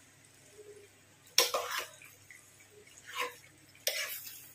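Steel spatula clanking and scraping in a pan of wet, saucy macaroni as pasta cooking water is stirred into the white sauce: three sharp strokes, starting about a second and a half in.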